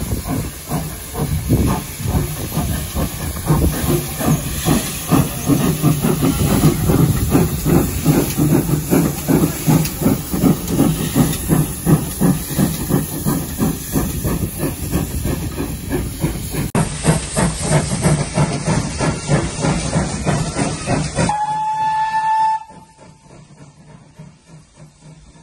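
Two steam tank locomotives, GWR No. 813 and a black tank engine, double-heading a passenger train and working hard. Their rapid, overlapping exhaust beats are loud and steady as they pass. Near the end a short steam whistle sounds once and the train noise drops away.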